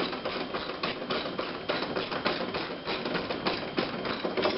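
Rapid, uneven metallic ratchet clicking, several clicks a second without a break.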